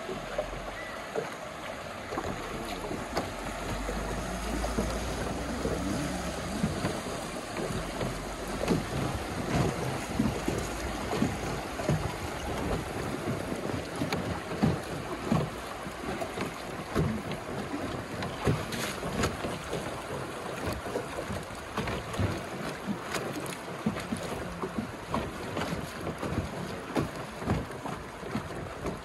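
River water splashing and lapping around a drifting raft, many small irregular splashes over a steady rush. Wind buffets the microphone, strongest in the first several seconds.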